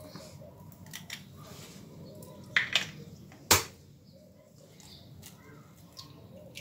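Sharp taps and clicks against a stainless steel mixing bowl as eggs are cracked into it: a quick pair of clicks a little before halfway, then one louder knock, with smaller ticks around them.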